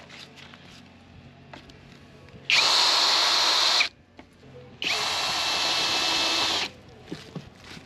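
Cordless drill-driver driving screws into a wooden formwork board, running in two bursts of about a second and a half and two seconds. Each burst starts with a short rise in pitch as the motor spins up, then holds a steady whine.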